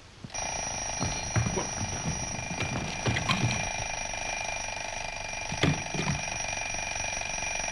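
A bell ringing continuously without a break, a fast rattling ring like an alarm clock's, with a few soft knocks over it.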